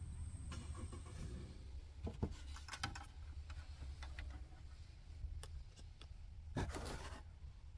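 Faint handling noise: a few scattered light clicks and a short rustle near the end, over a low steady rumble.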